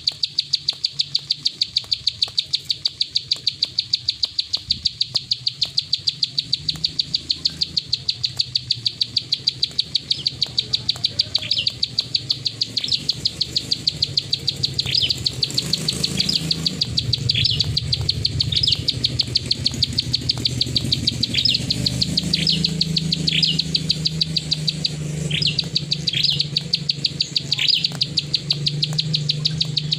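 Plain prinia (prenjak sawah) giving its rapid 'klik' call: an even train of sharp clicks at about four a second, with short falling chirps mixed in from about a third of the way through.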